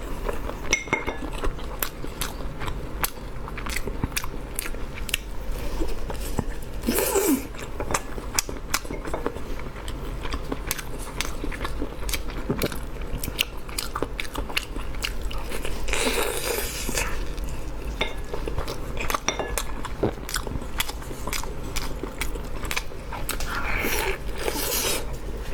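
Close-miked eating of sesame chicken: biting and chewing, with many small sharp mouth and food clicks and a louder crunching bite roughly every eight or nine seconds.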